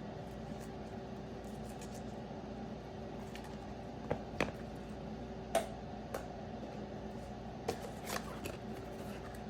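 Baseball cards and their packaging being handled: a handful of light clicks and rustles in the middle of the stretch, over a steady background hum.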